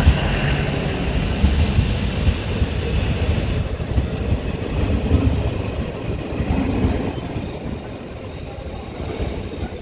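A DEMU (diesel-electric multiple unit) train rolling into the station, a steady heavy rumble of the train running on the rails. A thin, high wheel or brake squeal joins in during the last few seconds.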